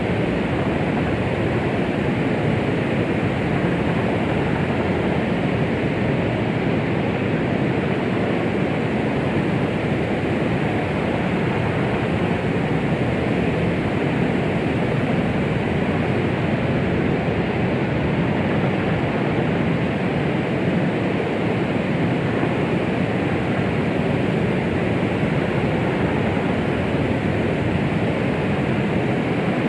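Steady, unbroken noise with its weight in the low and middle range, no tones and no rhythm: a white-noise track meant as a womb-like sound to soothe a baby.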